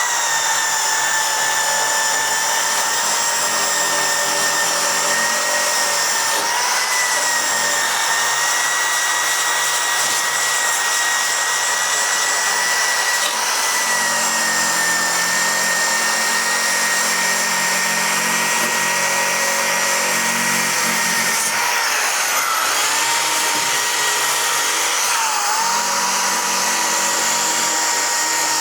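Electric power tool running steadily with a high whine, its pitch dipping briefly a few times as it is worked against the steel of the Cortina's hinge panel, stripping paint from the panel's edges.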